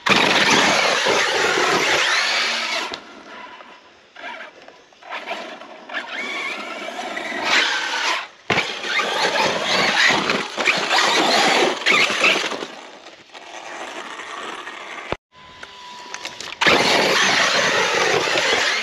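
Arrma Fireteam RC truck's brushless electric motor and drivetrain whining, the pitch sweeping up and down with the throttle as it accelerates and slows, with tyre and gravel noise. Twice the sound cuts off abruptly and picks up again.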